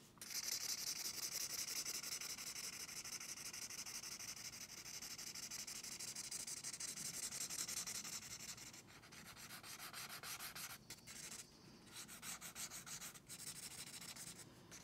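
Gray felt-tip marker scribbling rapidly back and forth on sketchbook paper while colouring in, a steady scratchy hiss of quick strokes with a few brief breaks in the second half.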